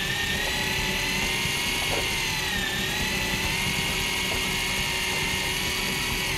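Electric fishing reel's motor winding in line with a steady high whine, its pitch dipping briefly about halfway through as the load on it changes.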